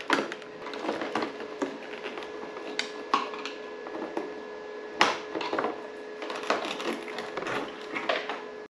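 Clicks, knocks and rustling of hands and cutters working on a Can-Am Ryker's plastic trim and the plastic cable-holding pins, with a sharp snap about five seconds in. A faint steady hum runs underneath.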